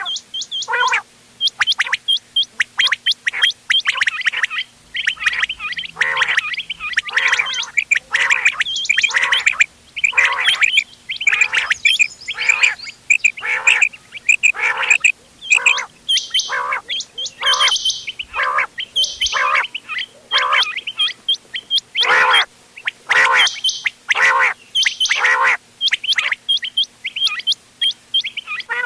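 Quail calls from several birds overlapping, as used to lure quail for hunting: quick runs of short, sharp high notes mixed with fuller calls repeated about once a second. A faint steady hum lies underneath.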